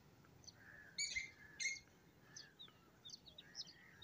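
Faint chirping of small birds: many short, high chirps, with two louder ones about a second in.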